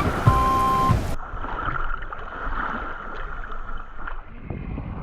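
Music for about a second, then a sudden change to a steady rush of wind and water with small scattered knocks.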